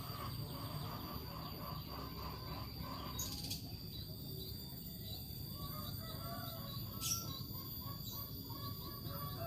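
Bird chirping: runs of short, quickly repeated notes, with a couple of brief clicks.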